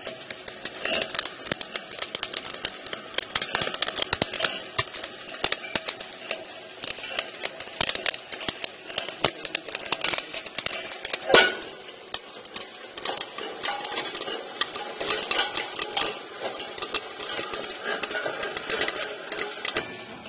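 Popcorn kernels popping in the stainless steel kettle of a popcorn machine: a dense, irregular crackle of sharp pops against the metal. One louder, ringing knock comes a little past the middle.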